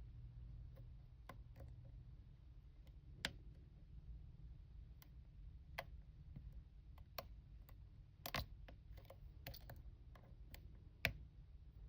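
Sparse, faint clicks and ticks from a hook pick and tension wrench working the pins of a small aluminium-bodied Master Lock padlock while it is single-pin picked, with a few sharper clicks scattered through.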